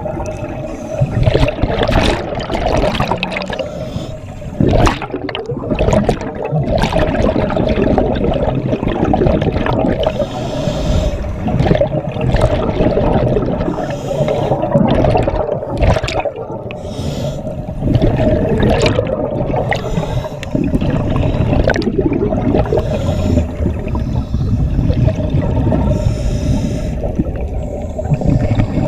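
Scuba divers' exhaled bubbles heard underwater, gurgling and rushing in repeated surges, over a steady hum.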